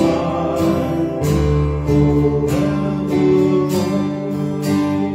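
Acoustic guitar strummed in a steady rhythm with keyboard accompaniment holding sustained notes: an instrumental passage of a worship song.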